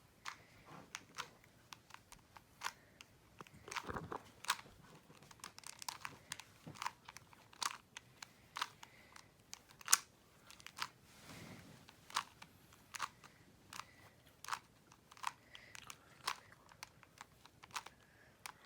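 Plastic Rubik's Cube layers being twisted by hand: a string of sharp clicks and clacks at irregular spacing, about one or two a second, with a soft rustle of handling a little after the middle.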